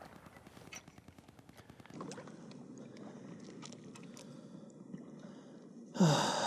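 Handling noise of fishing from a small boat: scattered light clicks and knocks over a low rustle. Near the end comes a sudden louder burst of noise, such as a breath or a movement close to the microphone.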